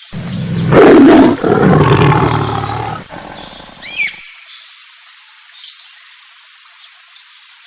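Lion roaring once: a loud roar that peaks about a second in and dies away by about three seconds. Birds chirp a few times through and after it.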